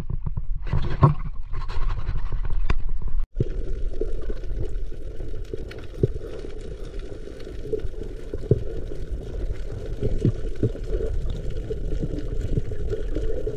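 Water noise breaks off abruptly about three seconds in and gives way to a muffled underwater wash during a spearfishing dive: a steady low rumble with scattered clicks.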